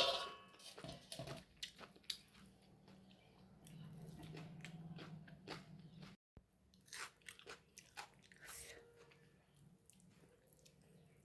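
Someone biting and chewing crunchy fried pakora: irregular crisp crunches and mouth clicks, the loudest bite right at the start.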